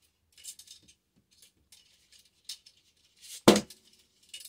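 AR-15 buffer spring, a steel coil spring, being pushed back into the rifle's buffer tube: light metallic scraping and rattling, with one loud clank about three and a half seconds in.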